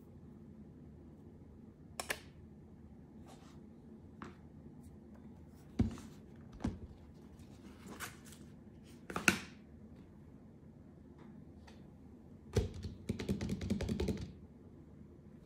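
Handling noises from an Apple Pencil Pro, its cardboard box and an iPad on a desk: scattered light clicks and knocks, the loudest about nine seconds in, then a quick run of taps lasting about a second and a half near the end.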